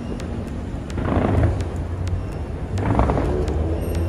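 Distant aerial fireworks going off: two rumbling booms about a second and three seconds in, with scattered sharp crackles over a steady low rumble.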